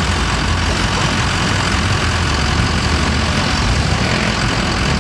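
Engines of lifted mud trucks running steadily as they wade through muddy water, a loud low rumble with no clear revving.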